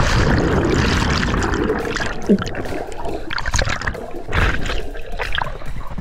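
Water churning and bubbling around an action camera just after a plunge into a waterfall pool. It is loudest at first and eases after a couple of seconds, then comes back in a few surges of splashing as the swimmer strokes at the surface.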